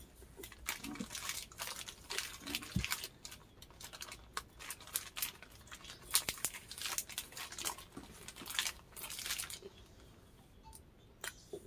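A Starburst chewy candy being chewed: a run of small clicking and crackling mouth sounds that die away about two seconds before the end.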